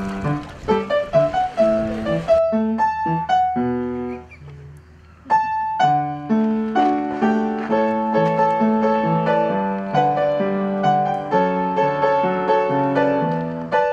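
Background piano music: a solo piano piece playing in even notes, with a brief lull about four seconds in before it picks up again.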